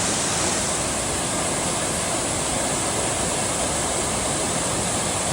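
Waterfall crashing steadily: a loud, even rush of falling water from a creek in high flow after days of rain.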